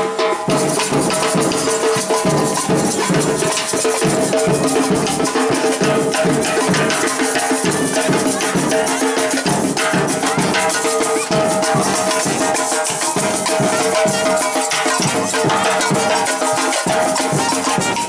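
Parade drumming band playing a steady rhythm on drums and shakers, with a held note sounding underneath.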